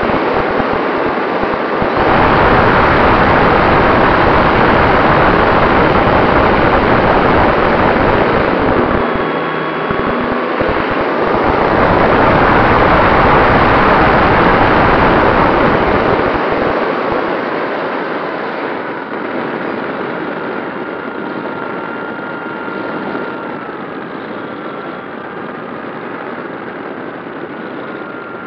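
Airflow rushing over the onboard camera's microphone on an electric RC plane (E-flite T-28 Trojan) in flight, with a faint whine from its motor and propeller that shifts a little in pitch. The rush is loudest in the first half and eases off after the middle.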